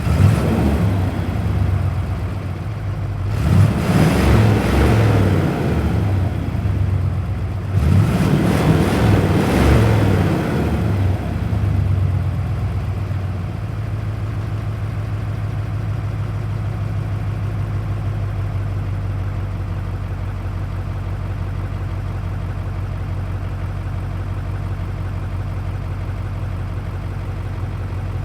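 Diesel V8 engine just started, revved up twice and then settling into a steady idle.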